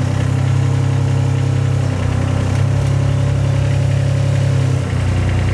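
Weedoo workboat's engine running steadily at about a third throttle while the loader arms raise the bucket. Its note dips briefly about two seconds in and settles a little lower near the end.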